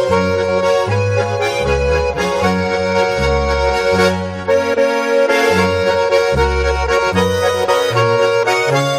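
Background music: an accordion playing a melody over a changing bass line.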